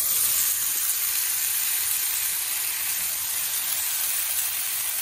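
Sliced potatoes, green peppers and onions sizzling in hot olive oil in a skillet, a fresh batch just added to the pan. A loud, steady hiss that eases only slightly.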